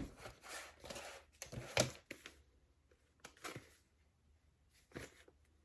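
Faint handling noises from beauty products and their packaging being moved: a few scattered clicks and knocks with soft rustling between them.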